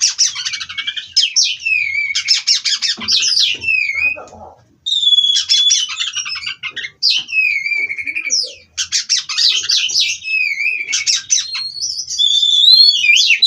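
Oriental magpie-robin (kacer) singing a continuous rolling song of fast trills, gliding whistles and buzzy notes, with brief breaks about four and a half and nine seconds in.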